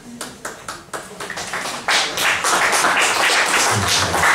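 Audience clapping, starting as scattered claps and swelling into full applause about two seconds in.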